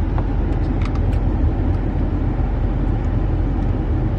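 Steady rumble inside a car's cabin, with the air conditioning blasting.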